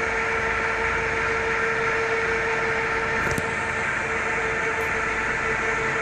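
Animatronic catfish's drive mechanism running, a steady mechanical whirr with one constant hum tone as the figure slowly moves. A single short click about three seconds in.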